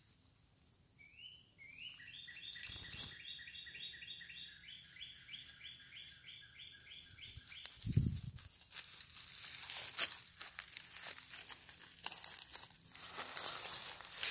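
A wild bird calls a rapid run of repeated high notes for about five seconds. Then, after a thump about eight seconds in, dry bamboo leaf litter crackles and rustles.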